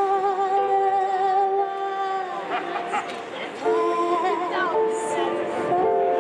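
A woman singing live through a PA with keyboard accompaniment. She holds long notes with vibrato across two phrases, and the second begins a little over halfway through.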